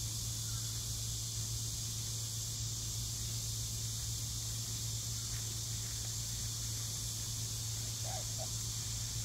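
Steady outdoor background: a low hum under a high steady hiss, with a faint brief chirp about eight seconds in.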